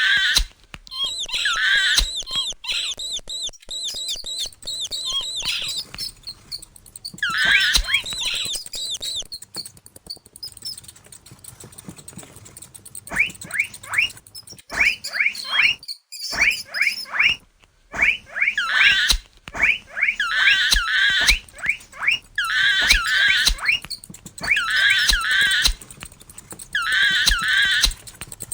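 Mouse squeaking sound effects: clusters of high, wavering squeaks recur every second or two. Around the middle comes a run of rapid short chirps.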